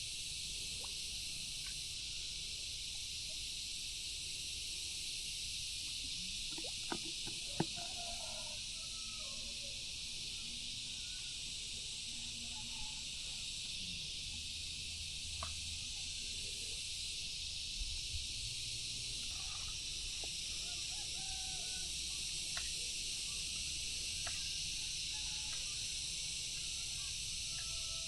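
Steady high-pitched drone of an insect chorus, with a few sharp clicks, two of them close together about seven seconds in.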